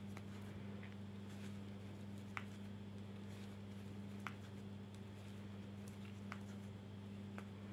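A crochet hook working yarn: a few faint, irregular clicks and light handling sounds as stitches are pulled through, over a steady low hum.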